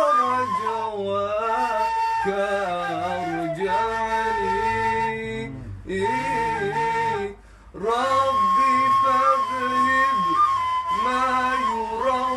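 Arabic devotional song in praise of the Prophet, a qasida sung by a male voice in long, ornamented notes that glide between pitches, with a brief break about seven and a half seconds in.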